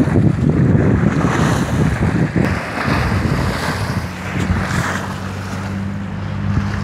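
Small waves of the Hooghly river washing and breaking on the bank, with wind buffeting the microphone. A low steady hum joins about three seconds in.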